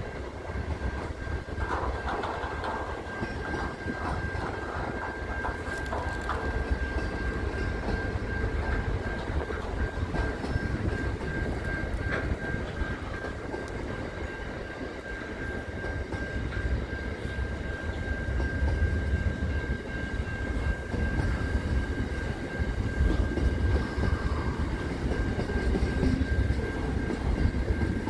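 Container freight train's wagons passing at speed: a continuous low rumble with wheel clatter, growing louder in the last few seconds. A steady high tone runs through it.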